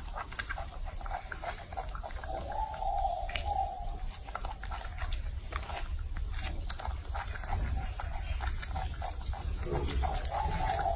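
Baby macaque biting and chewing soft food: an irregular run of small wet mouth clicks and smacks over a low background rumble.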